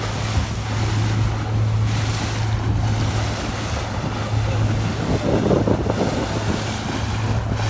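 Boat engine droning with a steady low hum, with water rushing against the hull and wind buffeting the microphone.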